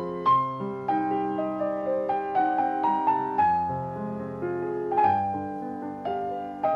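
Instrumental piano music: a melody played over sustained chords, with no singing.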